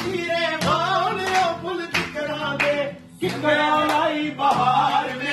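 Men singing a Punjabi folk song to a strummed acoustic guitar, with a short break in the singing about three seconds in.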